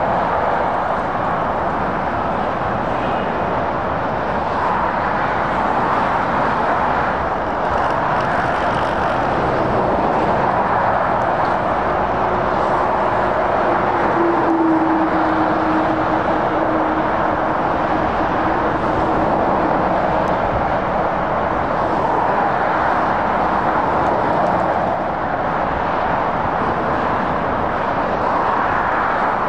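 Steady noise of heavy motorway traffic: lorries and cars passing at speed, mostly tyre noise on the road surface. About twelve seconds in, a low droning tone from one passing vehicle comes in, falls slightly in pitch and fades out some ten seconds later.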